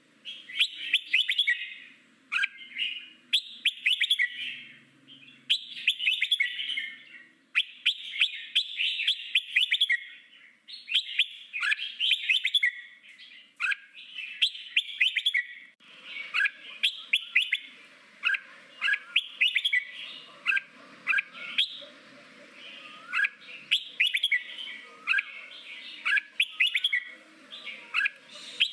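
Red-whiskered bulbul singing its wild 'forest voice' song: short bursts of quick chattering, whistled phrases, one after another with brief gaps. From about halfway the phrases grow sparser, with rising notes over a faint steady hum.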